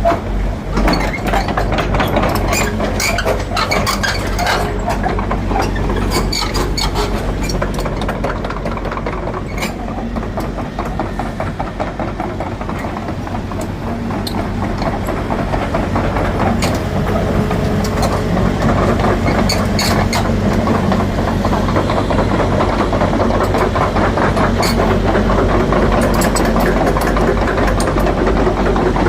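Hitachi Zaxis 135US hydraulic excavator's diesel engine running steadily, with frequent metallic clanks and clicks over the engine hum.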